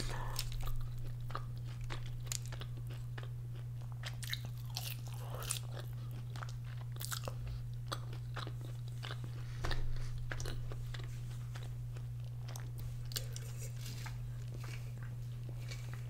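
Close-up mouth sounds of eating loaded crinkle-cut fries with melted cheese and chicken: biting and chewing with many small wet clicks and smacks. A steady low hum sits underneath.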